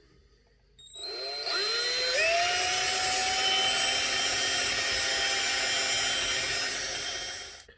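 Handheld cordless drill starting about a second in, its whine rising in pitch as it spins up, then running steadily as a small bit drills a hole into a model locomotive's metal motor casing. It stops just before the end.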